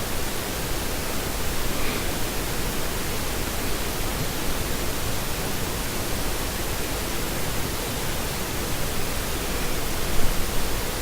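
Steady hiss with no clear source. One brief knock about ten seconds in.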